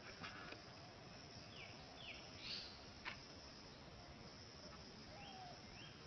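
Faint steady insect drone with a few short bird chirps, two sliding down in pitch midway and two sliding up near the end, plus a couple of soft clicks.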